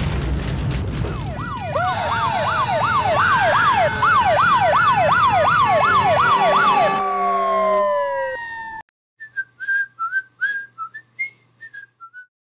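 Cartoon sound effects: the rumble of an explosion dying away, then several emergency-vehicle sirens wailing together, rising and falling about twice a second. The sirens cut off about seven seconds in, one winding down in pitch, and near the end comes a run of short high chirps.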